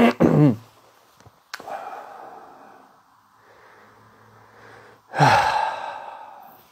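A man breathing out audibly: a soft exhale about a second and a half in, then a loud voiced sigh about five seconds in that falls in pitch and trails off.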